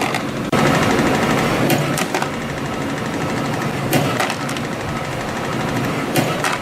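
CNC compression spring coiling machine running steadily as it feeds and coils 0.8 mm wire, with a pair of sharp clicks about every two seconds as each spring is cut off.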